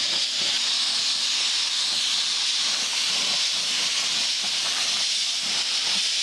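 Gravity-feed paint spray gun hissing steadily as compressed air atomizes and sprays clear coat.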